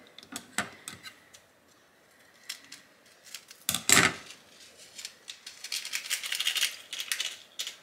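Plastic corned beef spice packet being opened and handled: scattered crinkles and clicks, with one loud crackle about four seconds in. Near the end comes a busy run of quick rattling and scraping as she works in the pot with a wooden spoon.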